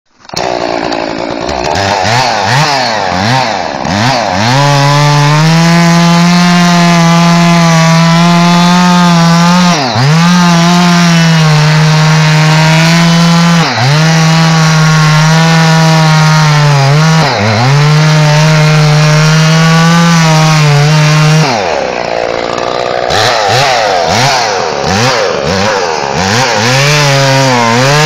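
Two-stroke chainsaw run hard: the throttle is blipped rapidly up and down for the first few seconds, then held wide open with brief dips in speed, then blipped again for several seconds past the 20-second mark.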